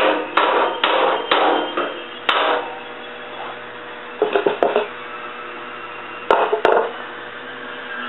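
Body hammer striking the freshly gas-welded patch seam on a steel car fender. About two blows a second for the first two and a half seconds, then a quick flurry of taps and, after six seconds, two sharp blows, over a faint steady hum.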